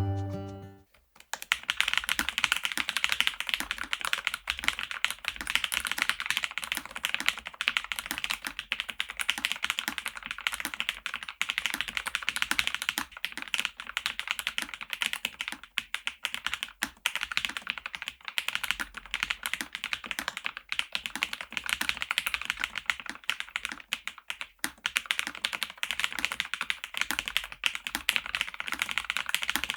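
Continuous typing on a Lofree Flow Lite low-profile mechanical keyboard: rapid, steady keystroke clacks that start about a second in, after the music fades out.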